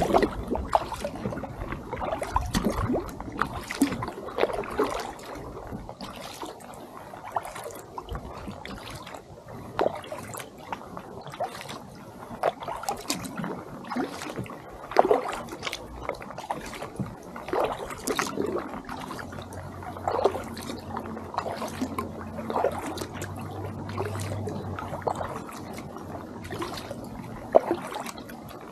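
Double-bladed kayak paddle working calm lake water: each blade dips in and pulls out with a small splash and drips, stroke after stroke in a loose, steady rhythm.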